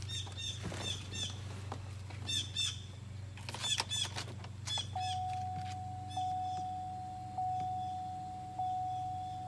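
Birds chirping in short repeated pairs. About halfway through, a steady electronic chime tone begins, re-struck and fading about every second and a bit, over a low steady hum.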